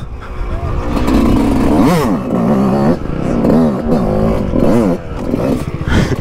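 Yamaha YZ two-stroke motocross bike engine being ridden in fourth gear, its pitch rising and falling several times as the throttle is opened and closed.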